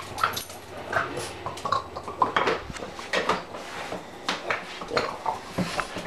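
Small dog growling and grunting in play while chewing a stick; it sounds vicious but is play. Irregular clicks and clinks come through throughout.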